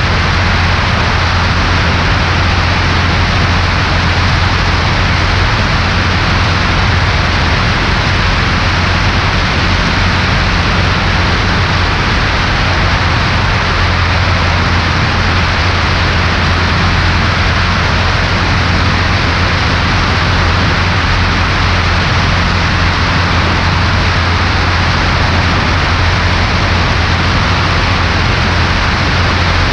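Cessna 140A light aircraft heard from inside the cabin: its single piston engine runs at steady power, a constant low drone under loud, even wind hiss, with no change in pitch or level.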